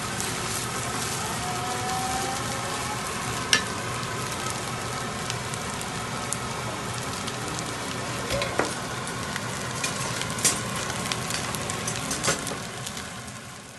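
Fried rice sizzling steadily in a hot pan as it is stirred, with a few sharp knocks of the spoon against the pan.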